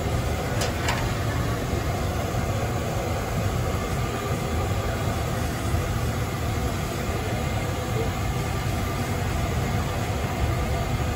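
Hot oil sizzling and bubbling in a large kadai as batter fries, over a steady low rumble.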